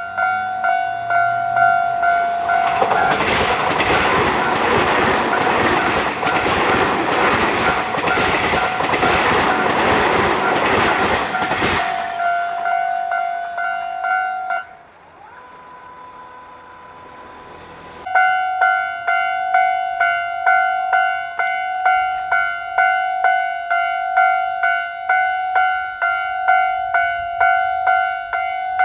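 Japanese railway level-crossing alarm ringing with a steady, evenly repeated 'kan-kan' strike. From about 3 to 12 seconds in, a train passes through the crossing with loud rumble and wheel clatter over the rail joints. The alarm cuts off abruptly near 15 seconds, and after a short quieter gap a crossing alarm starts ringing again near 18 seconds.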